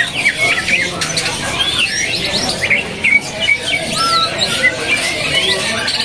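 Caged green leafbirds (cucak ijo) singing: a busy, overlapping run of quick whistled chirps and slurred notes that rise and fall, from several birds at once.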